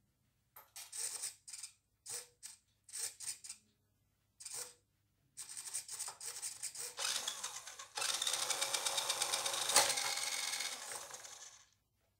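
Small electric drive motor and gears of an RC car spinning its raised wheels, starting and stopping in a string of short bursts, then running for about six seconds before cutting off, switched on and off by the prototype automatic braking system.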